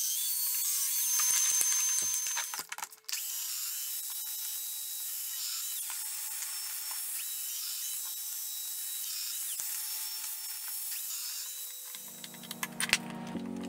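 A power tool running on wood with a steady high whine, stopping briefly about three seconds in and then running on. Music comes in near the end.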